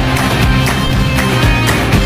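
Upbeat backing music with a steady drum beat.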